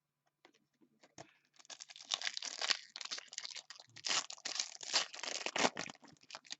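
A foil trading-card pack wrapper being torn open and crinkled, a dense run of crackling that starts about a second and a half in and stops just before the end, after a few faint clicks.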